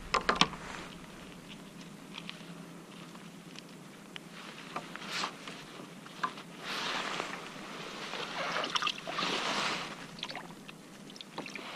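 Water trickling and sloshing beside a kayak, with a few sharp clicks and knocks of fishing gear being handled; the water noise swells twice in the second half.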